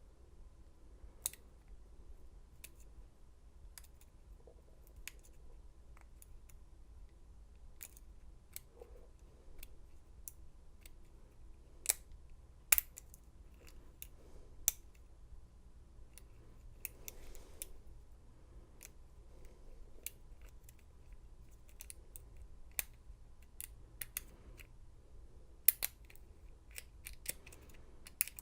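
Lock pick and tension wrench working the pins of a Schlage deadbolt cylinder: scattered small metallic clicks and ticks at irregular intervals, a few sharper ones partway through. This is single-pin picking through a false set with spool pins.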